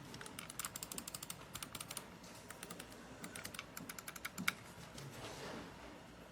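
Buttons of a TMKB M1SE gaming mouse clicked rapidly in several quick runs of sharp clicks, stopping about four and a half seconds in.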